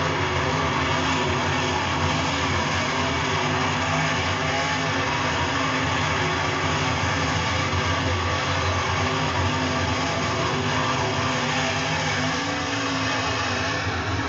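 Dirt Super Late Model race cars' V8 engines running at speed around the oval: a dense, continuous drone with engine notes wavering up and down as the cars pass.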